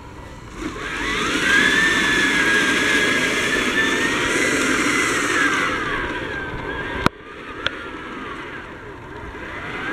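Power Wheels ride-on toy electric motor and gearbox driving a tank track. The whine rises about half a second in, holds steady for about five seconds, then winds down. A sharp click comes about seven seconds in, and the whine starts rising again near the end.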